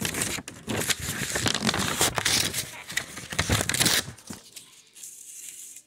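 Scratchy rustling and crackling of cloth rubbing over a camera's microphone, dense for about four seconds, then dying down to a faint hush.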